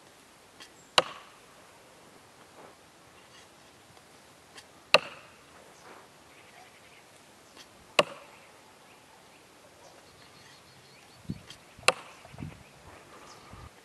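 A hand-forged tomahawk thrown repeatedly into the end grain of a log, each hit a sharp thunk with a brief ring: four hits about three to four seconds apart, then a couple of softer thuds near the end.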